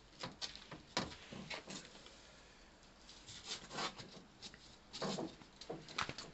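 Scattered light knocks, scrapes and rubs as a blue plastic water pipe is handled and pushed down into a trench.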